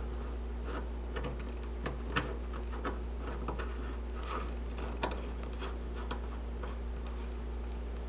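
Small metal faucet adapter handled in the fingers: about ten scattered light clicks and taps, over a steady low hum.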